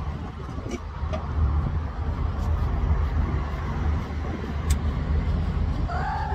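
Steady low rumble of wind buffeting the microphone. Near the end, a cat gives one short meow.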